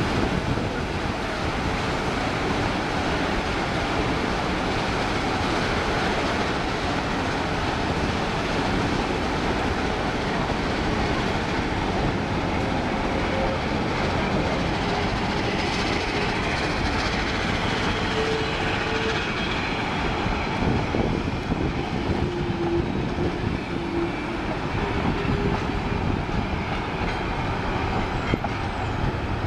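Steam-hauled train of passenger cars and a caboose rolling past on the rails, a steady rumble and clatter of wheels on track, with a few faint brief squeals from the wheels.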